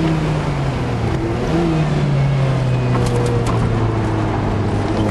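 Lotus Elise Sport 160's 1.8-litre Rover K-series four-cylinder engine heard from inside the cabin, its note falling steadily as the car slows, with a brief rise about one and a half seconds in. Road and wind noise run underneath.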